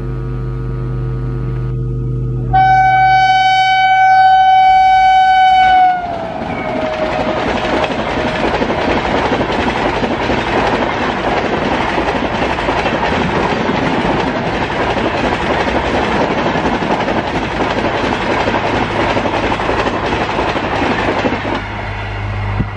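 Indian Railways electric locomotive approaching with a steady low hum, then sounding its horn in one long blast of about three and a half seconds whose pitch drops as it passes. The passenger coaches then rush past at high speed, a loud continuous rumble with wheel clickety-clack, easing off near the end as the last coach goes by.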